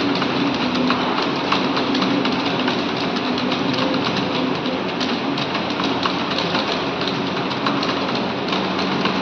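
Many people typing at once in a competition, a dense, steady clatter of overlapping key presses with a low hum underneath.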